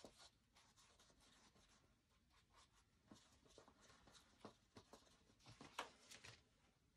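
Faint, irregular scratches and taps of a small paintbrush mixing paint on a paper-plate palette, then touching the canvas board, with a few slightly louder strokes near the end.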